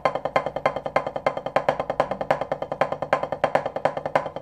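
Wooden drumsticks playing a fast, even stream of strokes on a snare drum, with louder accented strokes at regular intervals as in a sticking rudiment.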